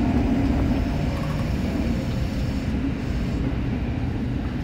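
Subway train running into a station and slowing, heard from inside the front car: a steady low rumble of wheels and running gear that eases off a little.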